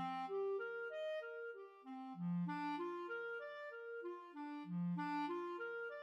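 A B-flat clarinet plays a steady eighth-note arpeggio accompaniment, one note at a time. Each broken chord rises from a low note and falls back, starting over about every two and a half seconds.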